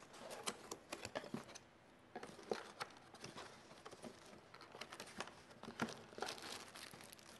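A small cardboard box being opened by hand: flaps bent back and the packing inside rustled and crinkled, with an irregular run of small clicks and taps.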